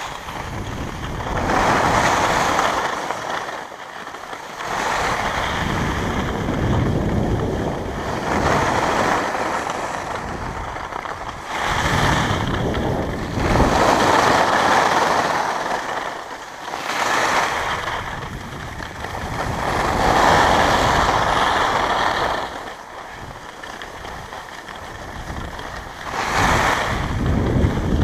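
Skis hissing and scraping over packed snow, with wind rushing across the microphone; the noise swells and fades in waves every few seconds as the skier turns.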